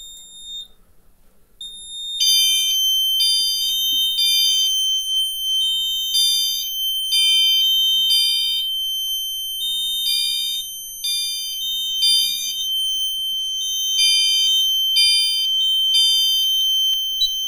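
Fire alarm notification appliances, a System Sensor L-Series horn strobe and chime strobe, sounding evacuation on a panel-activated fire drill. A steady high-pitched tone runs together with horn pulses in the temporal-3 pattern: three short blasts, a pause, then three more, repeating. It starts about two seconds in, after a short electronic beep.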